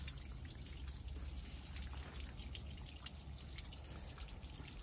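Faint, irregular ticking of water dripping from drip-irrigation emitters, over a low steady hum.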